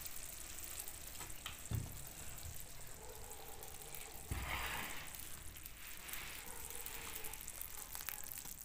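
Kadhi bubbling and sizzling faintly in a kadhai over a wood fire, with two dull knocks, the second about four seconds in as the pan is lifted off the stove with a cloth.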